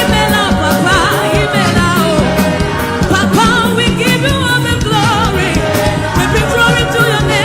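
Live gospel worship music: voices singing with a wavering vibrato over a band with bass and a steady drum beat.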